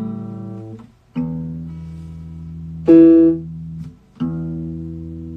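Guitar chords played slowly, each left to ring for a second or more before the next is struck, with a louder, brighter burst about three seconds in.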